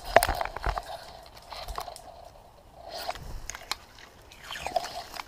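Dry rushes and grass rustling and crackling as someone pushes through them on foot, the stalks brushing against the camera, with sharp snaps in three short flurries.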